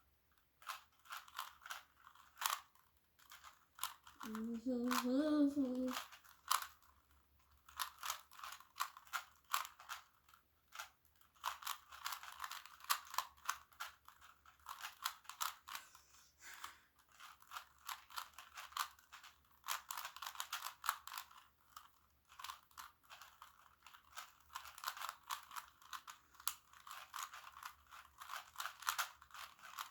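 Plastic Rubik's cubes being turned fast in speed-solving: a dense, irregular run of clicking and clacking from the layers snapping round. About four seconds in, a brief wordless hum from a person.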